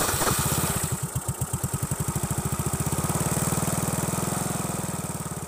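Yamaha Mio Sporty scooter's single-cylinder four-stroke engine idling through a kalkal pipe, a gutted, open-sounding muffler: an even, rapid exhaust beat that slowly grows quieter in the second half.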